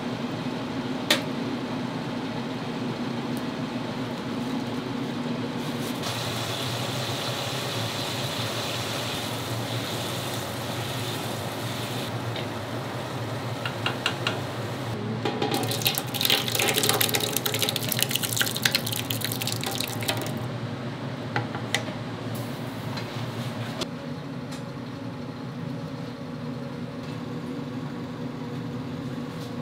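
Commercial kitchen work: water running and splashing, loudest and busiest a little past the middle, with scattered clicks of utensils over a steady background hum.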